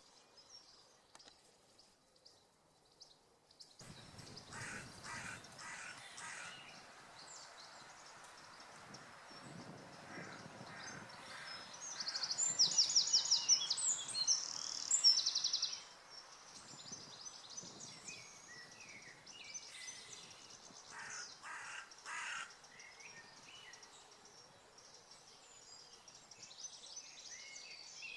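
Woodland birdsong with several birds singing at once over a soft background hiss. A loud, fast run of high notes from about 12 to 16 s is the loudest thing; a few harsh calls come around 5 s and again around 21 s.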